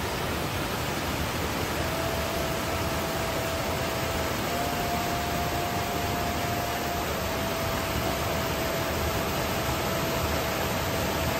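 Steady rushing of stream water, an even noise with no break.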